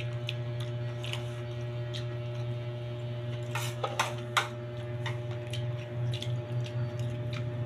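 Steady low electrical hum with a few faint steady tones, under scattered light crackles and clicks of raw cabbage leaves being torn and crunched. The crackles come most often around the middle.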